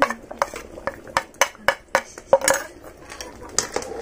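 A metal spoon clinking and scraping against a plate while ground spices are scraped off into the curry pot: a quick series of sharp clinks over the first couple of seconds, then softer, with a couple more clinks near the end.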